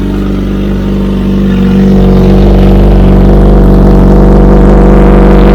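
Kawasaki Z H2's supercharged inline-four running through an ORION aftermarket exhaust with the catalytic converter removed, at a steady engine speed while it warms up. It gets louder about two seconds in and holds there.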